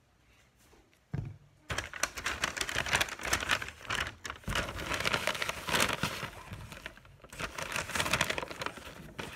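Brown paper lunch bag and snack packaging crinkling and rustling as food is packed into the bag, starting with a thump about a second in.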